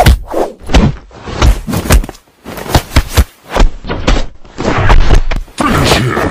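Punch and kick hit sound effects for a staged fight: a quick, irregular string of loud thuds and whacks, thickest near the end.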